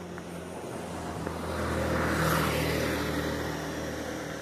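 A motor vehicle passing by, its engine and road noise swelling to a peak a little over two seconds in and then fading away.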